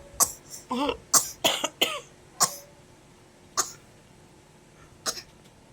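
A toddler's put-on, pretend coughing: a string of short coughs, about six in quick succession over the first two and a half seconds, some of them voiced, then two more single coughs a second or more apart.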